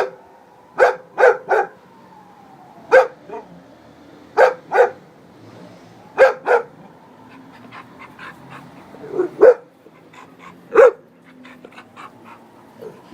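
Bull terrier barking: short, sharp barks, some single and some in quick runs of two or three, every second or two.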